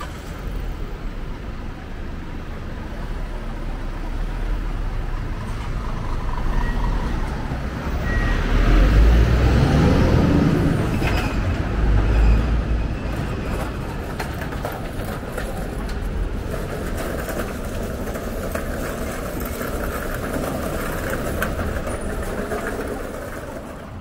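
Elizabeth Line Class 345 electric train running, a steady low rumble that swells to its loudest around the middle and then settles back.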